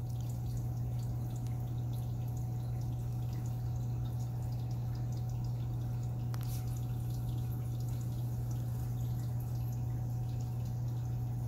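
A steady low hum with a faint, thin higher tone above it: room tone, broken only by a few faint ticks.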